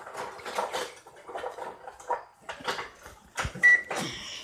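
Handling noises at a microwave oven: a thump about three and a half seconds in, then a single short keypad beep and a clatter near the end.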